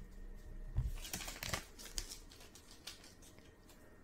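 Stack of cardboard baseball cards handled in the hands, the cards rustling and clicking as they slide against each other and are set down, with a soft bump just before the busiest rustling about a second in.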